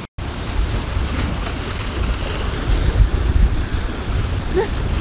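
Wind buffeting the microphone over waves washing and splashing against a rocky shore, after a split-second dropout at the very start.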